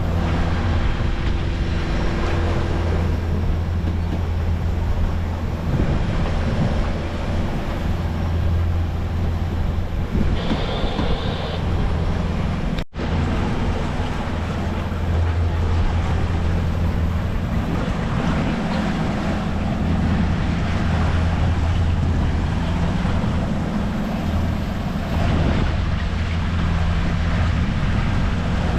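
A sailboat's inboard engine runs steadily under motor-sail, giving a low, even hum, with water rushing along the hull and wind buffeting the microphone. The sound drops out for an instant about 13 seconds in.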